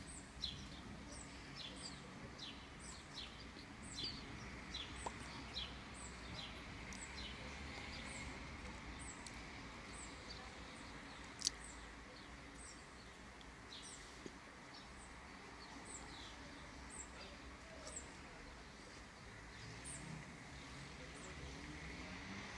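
A bird chirping over and over, short falling notes a little more than one a second, over a faint steady low outdoor rumble. A single sharp click about halfway through.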